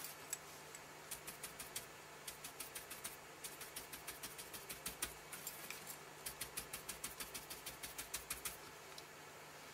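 Ink duster brush dabbing Distress ink onto cardstock through a paper mask: quick light taps, about six a second, in runs with short breaks, stopping shortly before the end.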